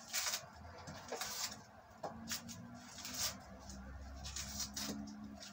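Faint rustling and scraping of hands handling vegetables at a kitchen sink, in about five short scratchy bursts, with a low hum under the second half.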